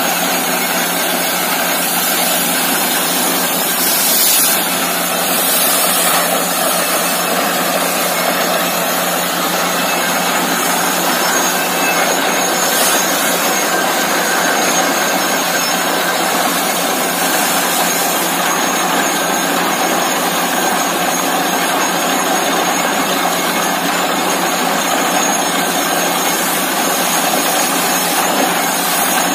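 Truck-mounted borewell drilling rig and its air compressor running steadily while drilling, the compressed air blowing water and cuttings up out of the bore casing. A loud, dense, unbroken machine noise.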